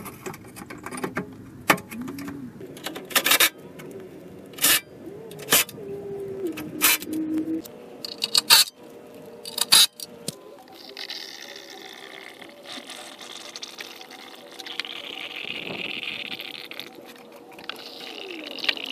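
A string of sharp plastic clicks and knocks over the first half, like the bumper cover being fitted and clipped back on. From about halfway, liquid pours steadily for several seconds, which fits coolant being poured into the newly replaced radiator.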